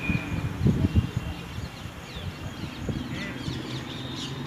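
Outdoor ambience of birds calling, with short chirps coming in from about three seconds in. Low thumps on the microphone in the first second are the loudest sounds.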